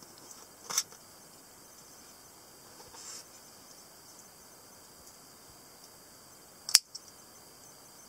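Small metal clicks from handling a keychain folding knife, then a sharp snap, followed at once by a smaller click, as its hooked blade flicks open near the end.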